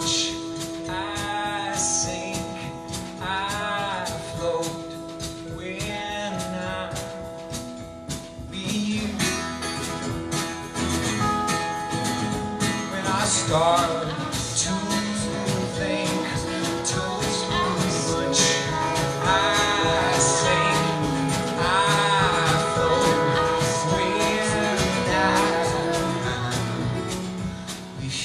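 Live band playing an instrumental break: acoustic guitar and drum kit under a lead line whose notes slide up and down in pitch.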